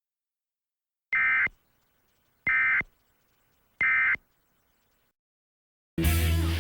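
Emergency Alert System End of Message data bursts: three short, identical, buzzy digital tone bursts about a second and a half apart, signalling that the alert has ended. Near the end, a loud hiss with a low hum comes in.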